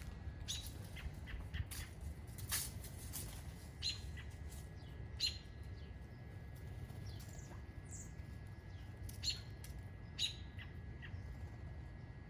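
Small birds chirping: short, sharp chirps scattered irregularly, a few louder ones standing out. Underneath are a steady low rumble and a faint steady high tone.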